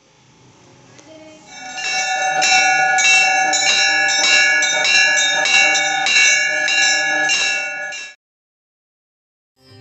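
A bell rung over and over in an even rhythm, about two to three strikes a second. It fades in over the first couple of seconds and cuts off suddenly near the end.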